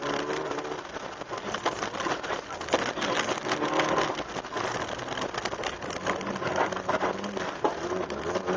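Opel Astra GSi rally car driven hard on a loose dirt stage: the engine running under load while gravel and stones rattle and clatter continuously against the underbody.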